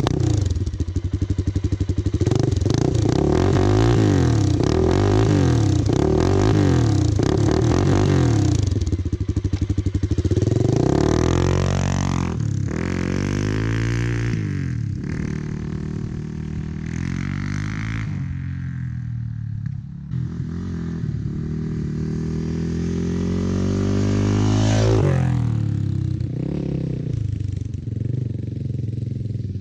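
1996 Suzuki DR350's single-cylinder four-stroke engine through a SuperTrapp exhaust, revved up and down in quick succession for the first several seconds, then climbing in longer rising sweeps that drop back, with a sharp rise about 25 seconds in.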